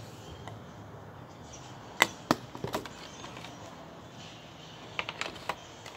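A few sharp clicks and taps over a steady low room hum: three about two seconds in, then a quick cluster of several near the end.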